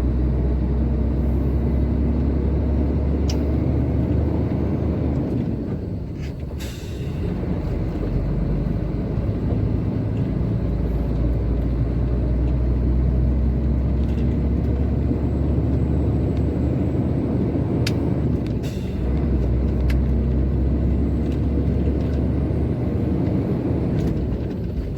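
Truck engine running under load as heard inside the cab while driving, a steady low drone. The engine note drops briefly twice, about six seconds in and again near nineteen seconds, with a few short sharp clicks.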